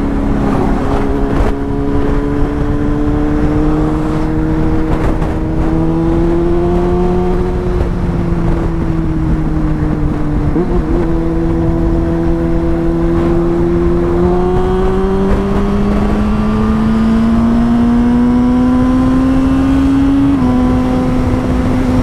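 Yamaha FZ6 inline-four motorcycle engine pulling steadily at road speed, its pitch slowly climbing and easing with the throttle. The pitch breaks briefly about halfway through and steps down slightly near the end. A steady wind rumble sits under it.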